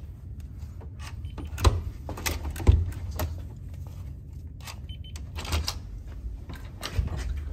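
A hotel room door being worked at the handle and lock: scattered clicks and knocks, two sharper ones about two and three seconds in, over a low steady rumble.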